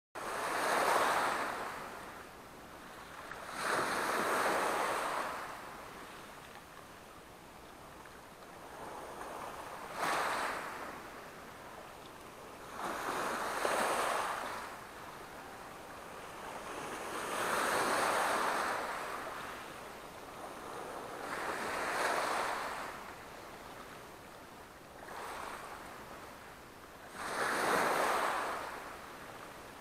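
Small sea waves washing in against the shore in slow swells every few seconds, each one rising and fading away over a second or two.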